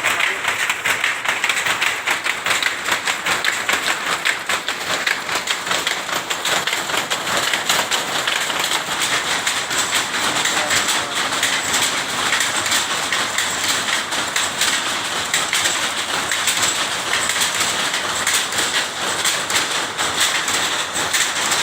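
Tapis-making textile machine running with a fast, steady mechanical clatter of rapid, even clicks that goes on without a break.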